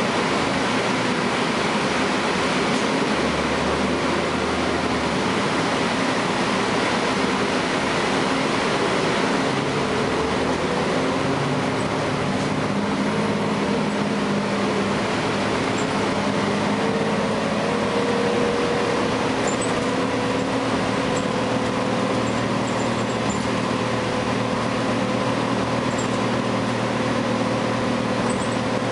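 Cummins ISL9 diesel engine and Allison B400R automatic transmission of a 2012 Gillig Low Floor transit bus, heard from inside the passenger cabin while the bus drives, with road and tyre noise throughout. About halfway through, the engine note rises slowly as the bus pulls up through a gear, then holds steady.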